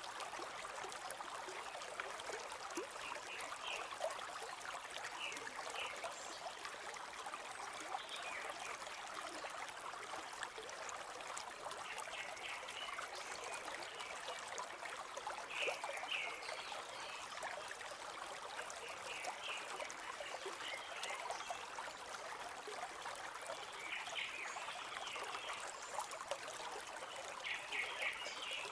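A river flowing and trickling steadily over stones, with clusters of short, high chirps every few seconds.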